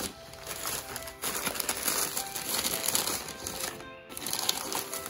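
Crumpled newspaper packing rustling and crinkling as hands dig through a cardboard box, over background music.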